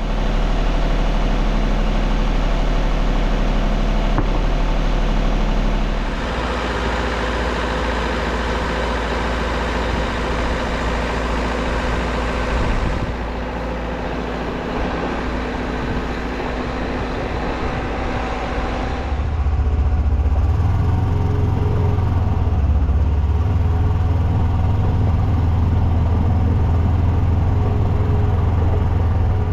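Wood-Mizer LT50 sawmill running steadily, its engine humming while the band blade saws through small red pine logs. The sound changes abruptly about 6, 13 and 19 seconds in.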